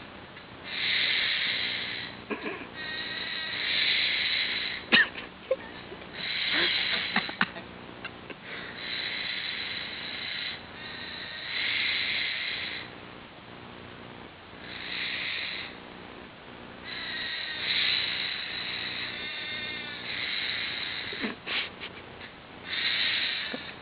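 Repeated harsh, hissing calls from an animal, each about a second long and coming every two to three seconds, some with a rapid flutter, with a few sharp clicks in between. The uploader takes them for a couple of birds.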